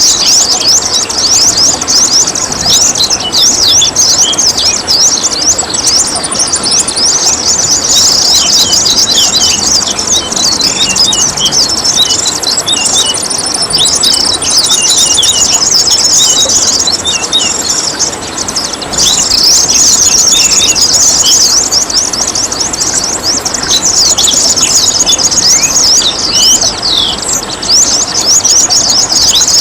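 Many small songbirds chirping and twittering without pause in quick, high notes, over the steady splashing trickle of running water.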